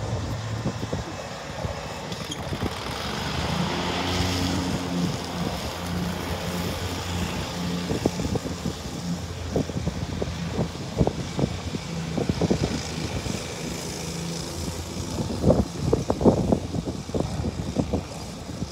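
Road traffic: a steady low engine hum, with the tyre and engine noise of a passing vehicle swelling to a peak about four seconds in and fading away. Short low thumps are scattered through it, most of them in the second half.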